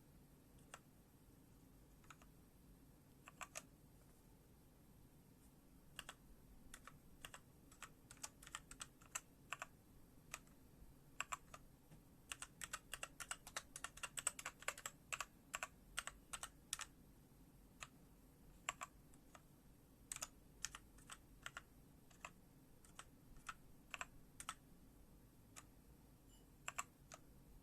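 Keys being pressed on a MORPH MK1 mechanical gaming keyboard: scattered single keystrokes, with a quick run of presses in the middle.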